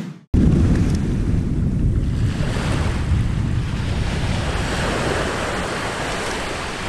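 Volcanic eruption: a deep, steady rumbling noise that starts abruptly just after a brief burst and slowly dies down.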